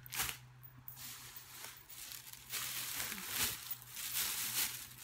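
Rustling and crinkling of plastic-packaged craft items, such as sticker sheets, being handled and sorted in irregular bursts, over a steady low hum.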